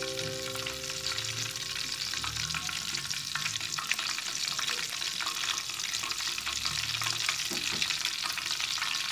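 Skewered egg roll batter and loose drips of egg deep-frying in hot oil in a wok, making a steady crackling sizzle.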